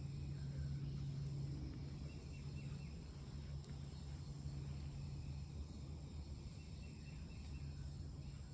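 Quiet outdoor ambience: a steady low hum, with faint high-pitched insect trills coming and going.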